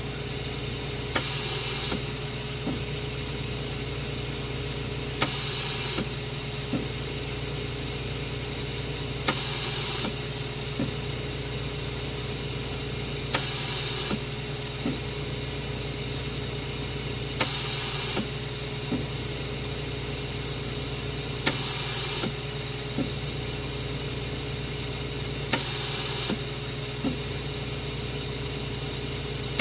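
Hospital mechanical ventilator running with a steady hum. About every four seconds a sharp click opens a short hiss of air, one breath cycle each time, and a softer tick follows each hiss.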